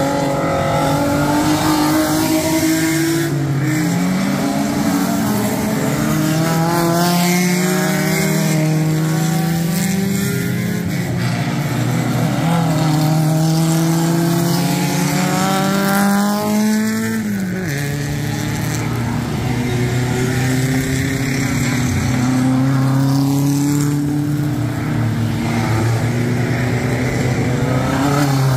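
Small-displacement vintage sports racing car engine at racing speed. Its pitch climbs slowly and steadily under acceleration, drops sharply about 17 seconds in, then climbs again.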